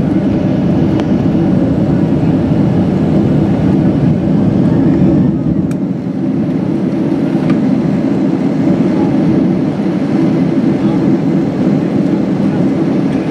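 Steady low rumble inside the passenger cabin of a Boeing 767-300ER as it taxis.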